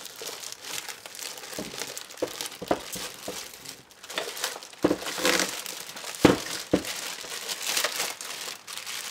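Clear plastic packaging wrap crinkling and rustling as it is pulled off a new foil machine by hand, with a few louder, sharper crackles past the middle.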